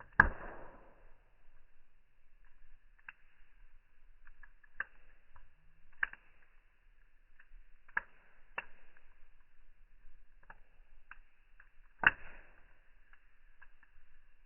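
Fire crackling in slowed-down audio: scattered pops and crackles, two louder pops near the start and about twelve seconds in, with smaller ticks between.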